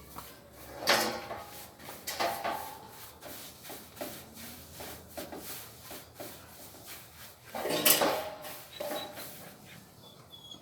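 A series of knocks and scrapes, wood-like handling sounds, with two louder ones about a second in and just before eight seconds.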